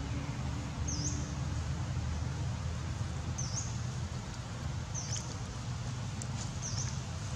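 A bird gives a short, high chirp that dips and rises again, four times, every one and a half to two seconds, over a steady low outdoor rumble.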